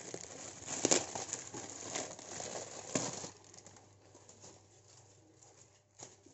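Plastic packaging crinkling and crackling as a box is pulled out of a polythene courier mailer bag, its bubble wrap rustling against the bag, for about three seconds. Then quieter handling of the wrapped box, with a single sharp tap near the end.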